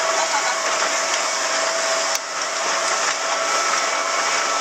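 Small motorboat running at speed, heard from inside its cabin: a steady rush of engine, wind and water against the hull, with a faint steady whine. A single sharp click about two seconds in.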